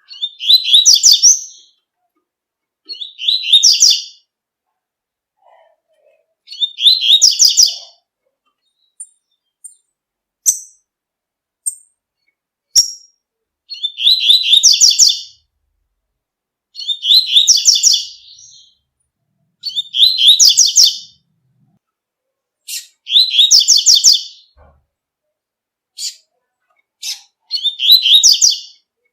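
Double-collared seedeater (coleiro) singing its "tui-tui" song: short phrases of quick repeated notes, each about a second and a half long, coming roughly every three seconds, with a few thin high chips in a pause near the middle.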